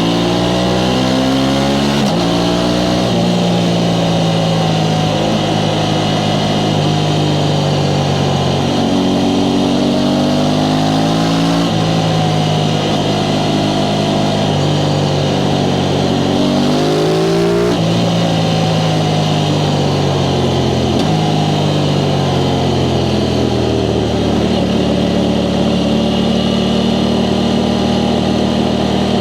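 Aprilia Tuono 660 Factory's parallel-twin engine through its stock exhaust, heard from the rider's seat. The revs climb and drop sharply with gear changes about two, twelve and eighteen seconds in, then the engine note falls and settles to a steady low run near the end.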